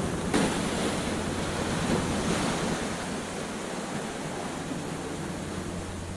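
Ocean surf on a beach: a wave breaks about half a second in, then its wash hisses and slowly dies away.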